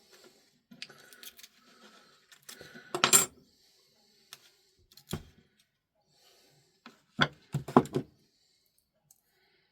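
Small parts and tools being handled on a hard work surface: light rustling and scraping, a sharp knock about three seconds in, and a few more clicks and knocks later on.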